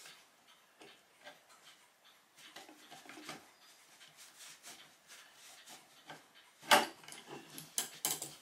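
Light clicks and knocks of metal parts on a homemade plywood clock mainspring winder being handled, with one sharper clack about two-thirds of the way through and a short cluster of clicks near the end.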